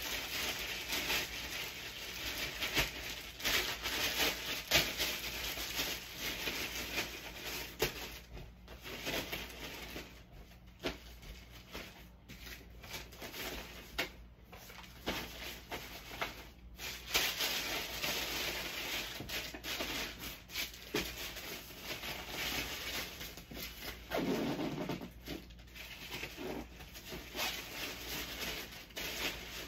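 Clothing and other items being handled and stuffed into a duffel bag: irregular, stop-start rustling and rubbing of fabric and packaging.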